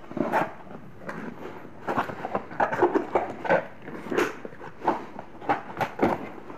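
Cardboard carton being opened by hand: flaps pulled back and packing inserts lifted out, giving irregular rustling, scraping and sharp crackles.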